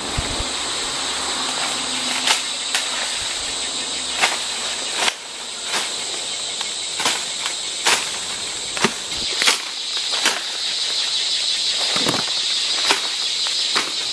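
A steady, high-pitched drone of forest insects runs under about a dozen irregular sharp snaps and crackles of dry bamboo litter and stems. These come from hands working through the undergrowth while gathering bamboo shoots.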